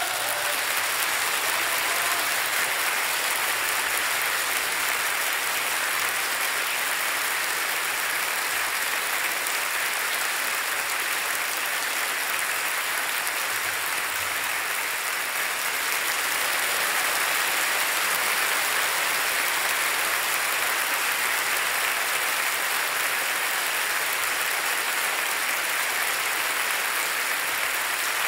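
Audience applauding steadily, a dense even clatter of many hands with no music under it.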